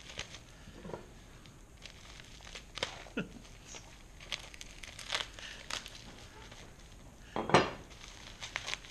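Plastic wrapping crinkling and crackling as gloved hands handle and unwrap a package, in scattered short crackles with one louder, sharper crackle about seven and a half seconds in.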